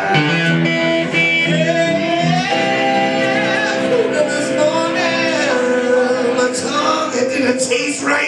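Live acoustic and electric guitar duo playing a song, with a man singing long held notes over the strummed and picked guitars.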